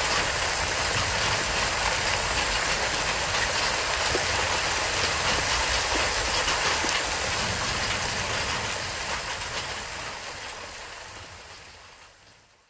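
A steady rushing noise with a faint fine crackle, fading out over the last four seconds or so.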